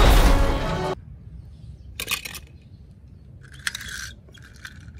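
An animated race car's crash with music, loud and dense, cutting off suddenly about a second in. Then a few short clicks and scrapes of a die-cast toy car being set down and moved on a painted wooden board, once about two seconds in and twice more near the end.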